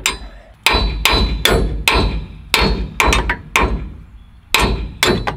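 Hammer blows on a truck's steel trailer hitch, about ten sharp metallic strikes at an uneven pace, knocking a stuck ball mount loose from the receiver.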